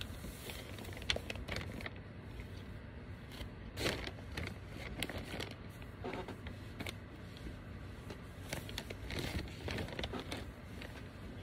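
Cotton t-shirts being pulled apart and handled: irregular rustling of fabric with scattered light clicks and knocks, a louder rustle about four seconds in.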